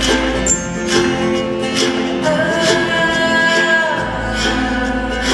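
Live acoustic band playing an instrumental passage: acoustic guitar and upright bass over a steady beat, with voices joining in. A long note is held in the middle, and the deep bass drops out about half a second in and comes back near the four-second mark.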